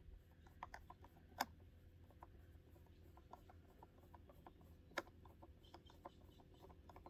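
Faint, irregular small clicks of a Phillips screwdriver turning a screw out at the front of a saddle's gullet, with two sharper clicks about a second and a half in and about five seconds in.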